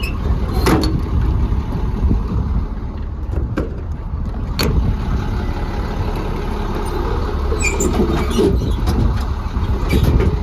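International DT466 diesel engine of a service truck idling steadily, a low rumble, with a few sharp clicks or knocks over it.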